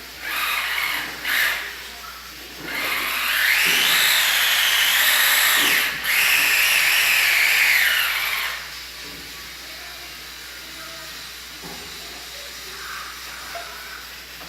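Small electric motor whining in two short bursts, then running for about six seconds with its pitch rising and dipping, broken off briefly about halfway.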